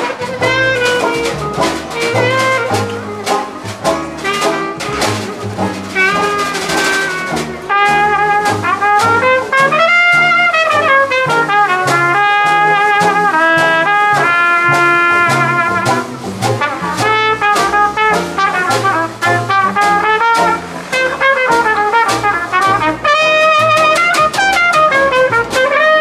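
Brass jazz band playing an upbeat tune, with trumpet and trombone carrying the melody over drums.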